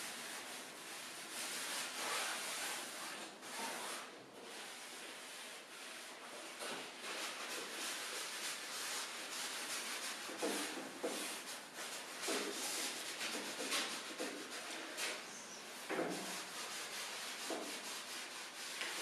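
Sponges rubbing and dabbing black acrylic paint onto a canvas on an easel: a continuous run of short, irregular scratchy strokes.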